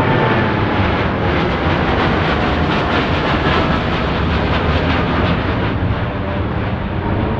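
Boeing 787-8's twin GEnx-1B turbofans at take-off thrust: a loud, steady jet roar with a rapid crackle through the middle as the airliner climbs out.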